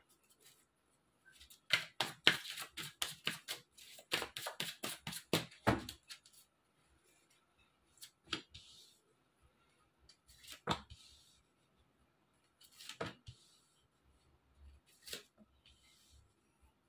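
A tarot deck shuffled by hand, a rapid run of card clicks for about four seconds, then four single cards laid down onto a cloth one at a time, a click about every two seconds.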